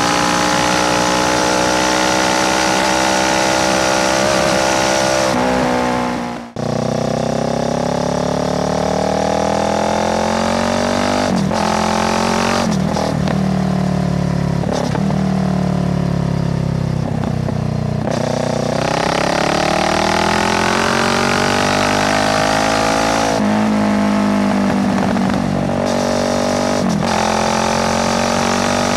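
Kawasaki Z650's parallel-twin engine through an Ixil full exhaust with no dB killer, ridden hard. The note drops out sharply for a moment about six seconds in, then the revs rise and fall several times with brief breaks between gears.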